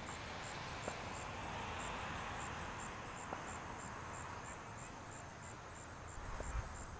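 Insects chirping in an even high-pitched pulse, about three pulses a second, over a steady outdoor hiss that swells and then fades, with a few faint ticks.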